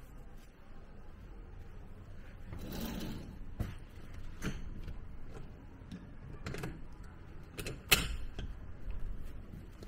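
A sliding glass door being moved aside behind a sheer curtain: a soft rustle about three seconds in, then scattered clicks and knocks, the sharpest about eight seconds in.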